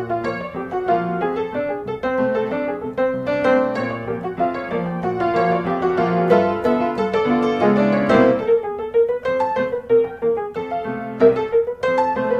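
Background music led by piano, a steady run of notes.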